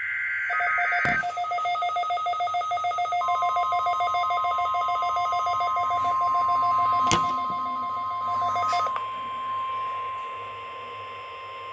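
Weather radio alert tones: a short warbling digital data burst first, then rapid two-pitch alarm beeping that stops about nine seconds in. Under it, the steady 1050 Hz NOAA Weather Radio warning alarm tone starts about three seconds in and holds to the end. Two sharp clicks, about one second and seven seconds in.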